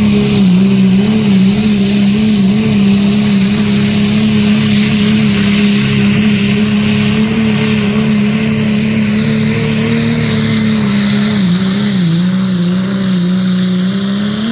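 Turbocharged diesel pickup engine held at high, steady revs under full load while pulling a weight-transfer sled, with a steady high turbo whine over it. The engine note dips briefly a few times.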